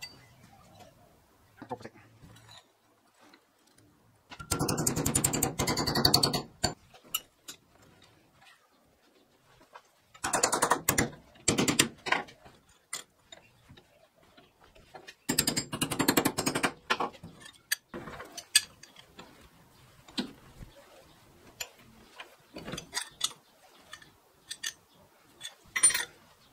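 Rapid metal-on-metal clicking and clattering as steel tabs clamped in a bench vise are bent over a rod into hooks. It comes in three dense bursts of about two seconds each, then turns into scattered lighter clicks and taps.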